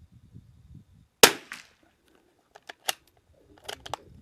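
A single sharp shot from a Christensen Arms Ranger 22 bolt-action rifle firing LAX .22 LR rimfire ammunition, about a second in. It is followed over the next three seconds by about five quieter sharp clicks.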